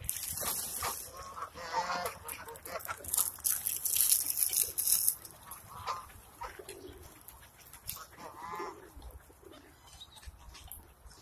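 A mixed flock of Canada geese, ducks and feral pigeons crowding in to be fed, giving several short calls. There are bursts of rushing, rustling noise in the first second and from about three to five seconds in.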